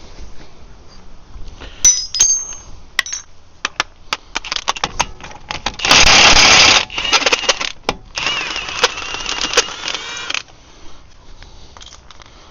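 Metal tools and sockets clinking, then rapid rattling from a wrench undoing the Qashqai's front suspension nuts: a short, very loud run about six seconds in, then a longer run of about three seconds.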